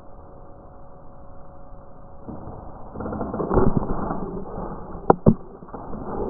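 Boxer dog gnawing a hard chew bone. It is quiet at first, then about halfway in a scraping, creaking grind of teeth on bone grows louder, with two sharp knocks a moment apart near the end.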